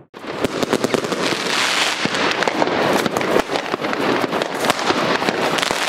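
Fireworks going off in a dense, continuous crackle of sharp bangs, many a second.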